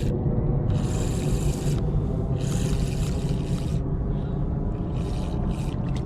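Steady low rumble of wind and moving tidal water on a GoPro microphone, with three short bursts of high hiss.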